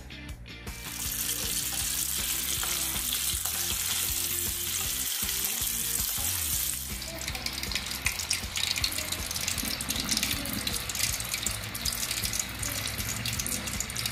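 Batter-coated chicken pieces deep-frying in hot oil: a dense, steady sizzle starts about a second in. After about seven seconds it turns into a softer, crackling spatter.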